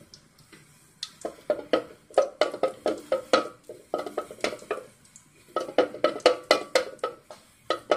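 A wooden spoon stirring melting ghee in a wide aluminium pot, knocking and scraping against the metal in quick strikes, about three or four a second, with a short pause midway.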